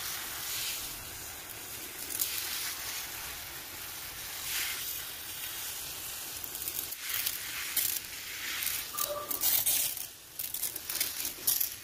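Hand spray bottle misting water over plant leaves: a hissing spray in repeated bursts, quicker near the end.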